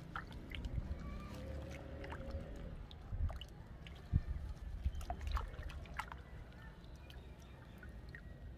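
Muddy water in a basin sloshing and dripping as hands swish and pull apart the soil-caked roots of flower seedlings, with scattered small splashes and drips over a low rumble.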